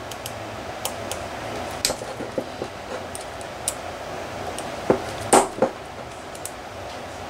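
Small metallic clicks and taps at irregular intervals as an Allen key works the socket-head screws out of an Enya 60-4C four-stroke model engine's housing, over steady room noise. The loudest click comes a little past the middle.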